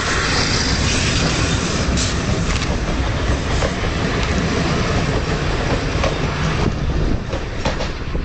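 Steam-hauled train headed by the Peppercorn A1 Pacific 60163 Tornado running past, a steady rumble with wheels clicking over the rail joints. It fades near the end.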